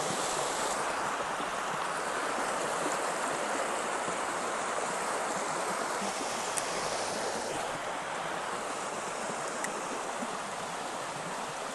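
Small creek's water flowing steadily, an even rushing hiss, with a couple of faint ticks.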